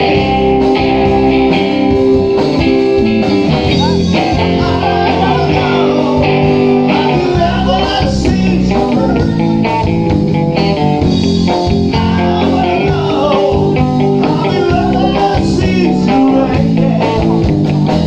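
Live rock band playing through amplifiers: electric guitar over bass guitar and drums, in a bluesy rock style.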